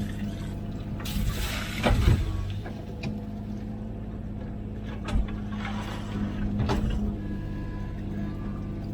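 A Komatsu PC16 mini excavator's diesel engine runs steadily at working speed. Louder bursts of scraping and clatter from the digging come about a second in and again around five and seven seconds.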